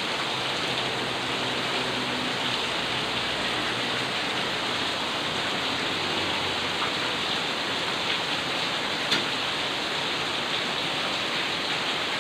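Steady rushing hiss, even in level, with a single faint click about nine seconds in.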